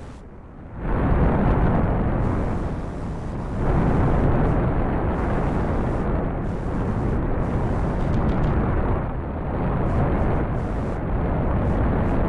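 Rocket launch: the engines' exhaust noise, a loud, steady low rumble that swells and eases slightly, starting less than a second in after a short lull.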